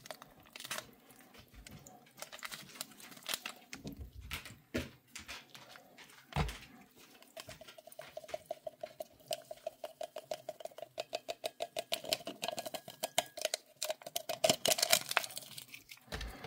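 Hands handling MRE coffee-fixing packets and a cup: scattered light clicks and taps, then about seven seconds of quick, even rhythmic strokes, about five a second, from shaking or working a packet.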